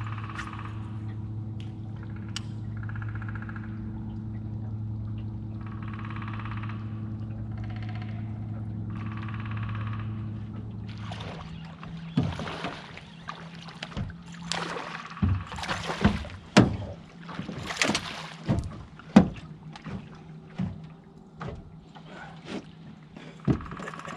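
A steady low motor hum that stops about eleven seconds in, then a run of sharp water splashes as a hooked small largemouth bass thrashes at the surface beside the boat before it is lifted out.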